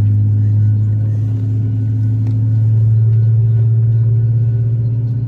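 Cabin noise of a Boeing 737-800 airliner: a loud, steady low drone from the jet engines and air system, with a few steady higher tones, swelling slightly about halfway through.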